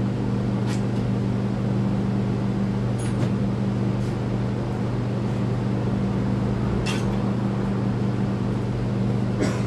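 Steady hum of electric shop fans, with a few faint light clicks.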